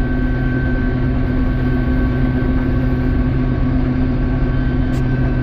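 Combine harvester running with its separator and header engaged while it cuts soybeans: a steady drone with a constant high whine over it. A brief click about five seconds in.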